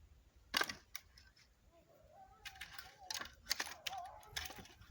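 A few sharp knocks and clicks: one loud knock about half a second in, then an irregular run of clicks in the second half.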